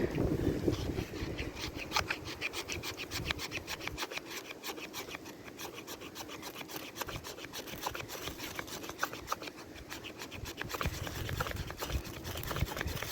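Rapid, regular rasping scrapes, about five a second, made by hand while he works on tinder for a fire, with wind rumbling on the microphone.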